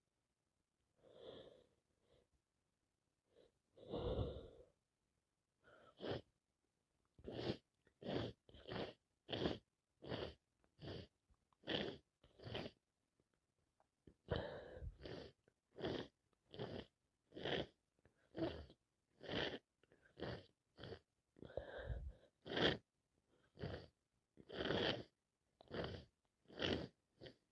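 A person with a head cold sneezing over and over in a long fit: a few breathy sounds at first, then short sneezes in quick succession, about two a second, from about seven seconds in, with one brief pause midway.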